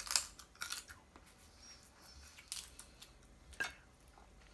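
Close-up eating sounds of cooked crab legs: a few sharp, scattered cracks and clicks of crab shell being broken and picked apart with the fingers as the meat is pulled out at the mouth.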